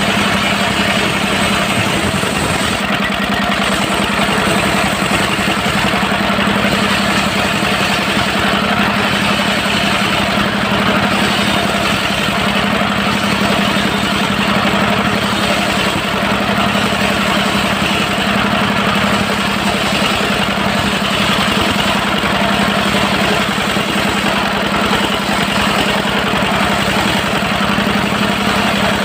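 Dongfeng diesel engine of a mobile circular sawmill running steadily at an even speed, with no change in load.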